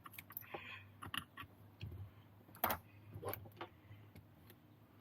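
Light clicks and taps of small hand tools and metal parts as a camber link screw is tightened on an RC truggy, scattered and irregular with the sharpest click about two and a half seconds in, over a faint steady hum.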